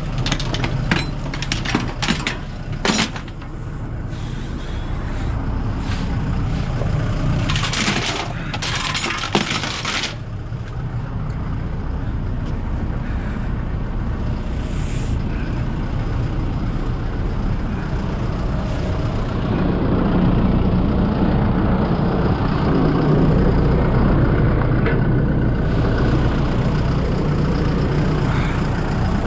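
Heavy diesel vehicle engine running, with sharp metallic clinks and clanks and two bursts of hiss in the first ten seconds; the engine gets louder about twenty seconds in.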